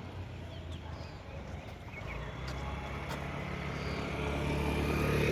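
A heavy engine running with a low, steady rumble that grows louder from about two seconds in, with a few faint clicks.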